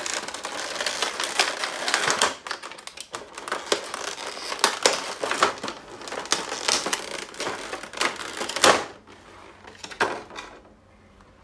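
Clear plastic blister tray crackling and clicking as it is handled and lifted, taking an action figure out of its packaging. The dense clicking stops about nine seconds in, with one more sharp click near ten seconds.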